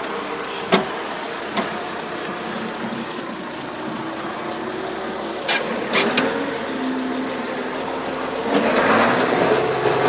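International Harvester 1255 XL tractor's engine running steadily, heard from inside the cab, with a few sharp knocks. About a second and a half before the end it grows louder and rougher.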